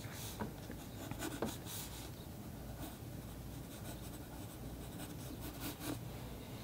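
Yellow wooden pencil scratching on watercolor paper in several short, irregular strokes as a sketch is drawn.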